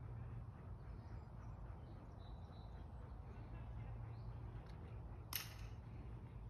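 Quiet room tone with a steady low hum, faint scattered ticks, and one sharp click about five seconds in.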